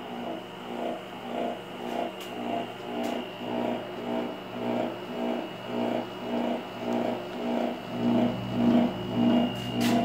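Heat-pump compressor and fan of a Rheem Performance Platinum 40-gallon hybrid electric water heater (model XE40T10H45U0) running, with a steady hum and a rhythmic throbbing about twice a second over a faint high whine. The compressor is faulty and due for warranty replacement.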